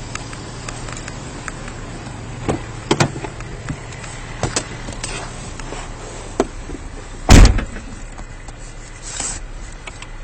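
A car door shutting with a single heavy thump about seven seconds in, the loudest sound, over the steady hum of an idling vehicle and scattered small clicks and knocks.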